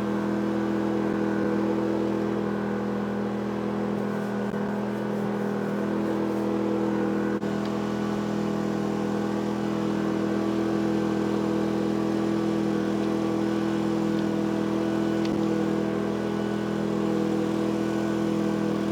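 Brand-new Yamaha EF2200 inverter generator running steadily with no load on it, a constant even engine hum.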